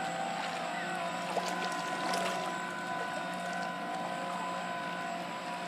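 Electric motors of radio-controlled model boats running, a steady whine in several tones over a haze of wind and water noise.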